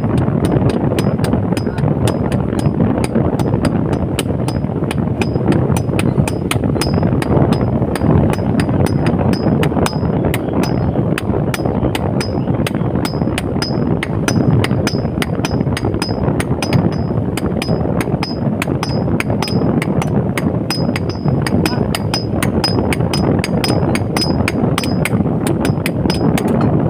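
Blacksmith's hammer striking metal on an anvil in a rapid, even rhythm of about three to four blows a second, each with a short high ring, over a steady low rushing noise.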